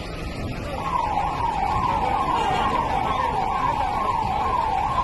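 Ambulance siren sounding in a fast yelp, about two rising-and-falling sweeps a second, starting about a second in over a steady background rumble.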